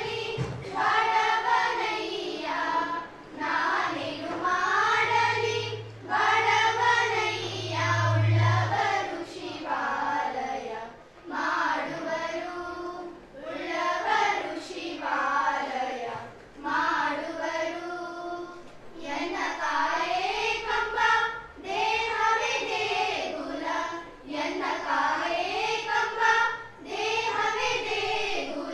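A group of schoolgirls singing a song together in unison into a microphone, phrase after phrase.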